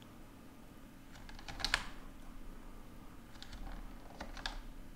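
Faint clicking of a computer keyboard and mouse in small clusters, the loudest just under two seconds in and another run around four seconds in, over a low steady hum.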